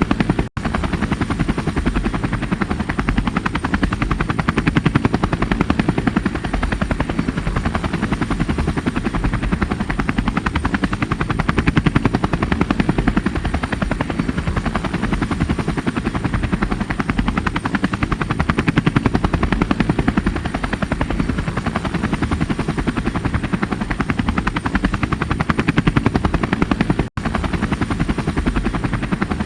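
Helicopter rotor blades chopping with a fast, steady beat, over a thin, steady high whine. The sound cuts out for a split second twice, about half a second in and near the end.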